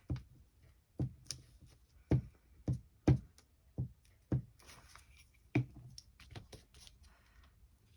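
A run of about eight irregular hand knocks and taps during crafting work, the loudest about three seconds in.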